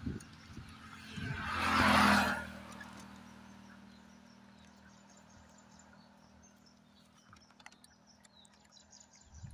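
A vehicle passes by, its noise swelling and fading over about a second and a half near the start. After it, faint high bird chirps and scattered small clicks.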